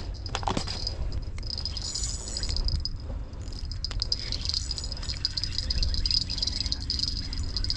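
Insects chirring steadily at a high pitch over a low background rumble, with a few clicks near the start.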